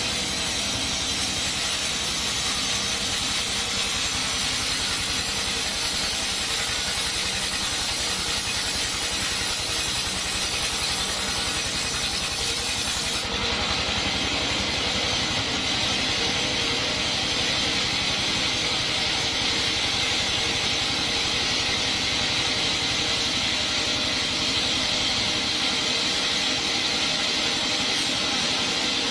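Sawmill band saw running steadily while sawing coconut wood, a constant mechanical hiss and whir. About halfway through, the highest part of the hiss drops away while the saw keeps running.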